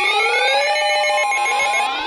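Several emergency alert tones sounding together: repeated rising whooping sweeps, overlapping at about one a second, over steady and beeping alert tones from weather-alert receivers sounding a warning.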